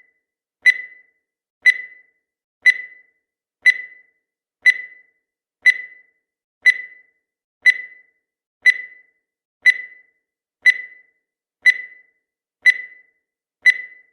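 Countdown timer sound effect: a short electronic beep once a second, each one sharp and dying away quickly, keeping a steady even rhythm.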